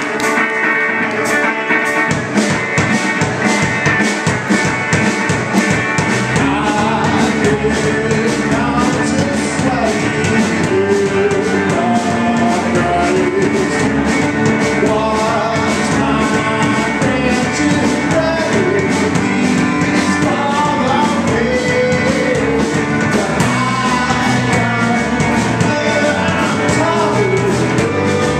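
Live rock band playing: electric guitar, electric bass and drum kit, loud and steady, with drums hitting evenly throughout.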